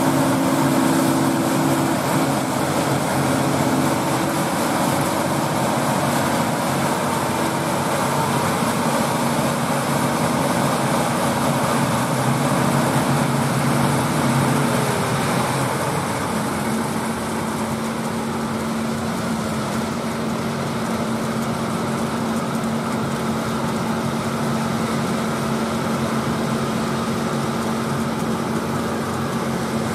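John Deere 8R tractors working under load, pulling KMC peanut pickers with their picking machinery running: a steady drone of diesel engines and threshing machinery. About halfway through, its hum shifts to a lower pitch and holds there.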